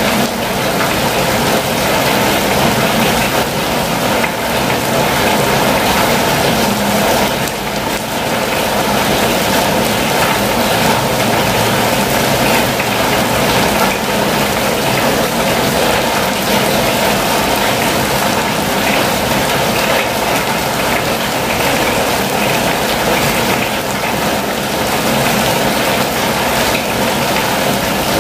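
Steady rain falling on a campervan's roof and windows, heard from inside the van as an even, unbroken patter.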